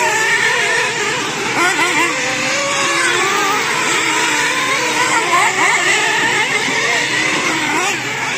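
Several radio-controlled race cars running laps on a dirt oval, their motors rising and falling in pitch over and over as they speed up and slow for the turns, the pitches overlapping without a break.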